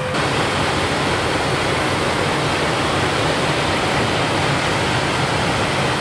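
CLAAS Lexion 8800 combine harvester running while harvesting wheat, a steady, even rushing noise that does not change.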